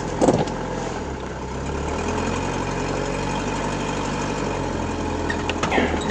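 A car engine idling steadily with a low hum, after a brief rushing swish just after the start.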